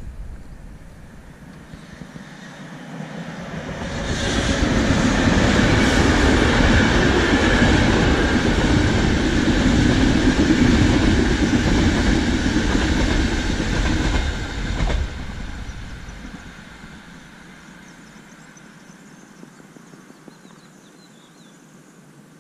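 Passenger train of red-and-white coaches crossing a masonry arch railway bridge overhead. The rail noise swells over a couple of seconds and stays loud for about ten seconds. It drops sharply as the train clears the bridge, then fades away.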